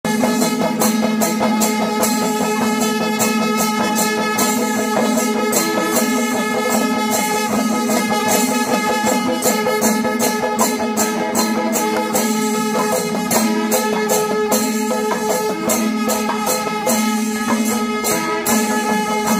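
Traditional folk music: a fast, dense jingling, rattling percussion over a steady held drone tone that does not change pitch.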